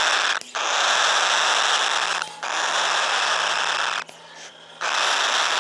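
Pearl cockatiel chicks giving harsh, hissing begging calls in long unbroken stretches that break off briefly three times. These are hungry unweaned chicks begging to be hand-fed.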